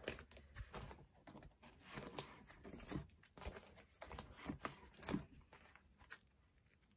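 Faint rustling, crinkling and soft taps of photocards and plastic binder sleeves being handled, thinning out near the end.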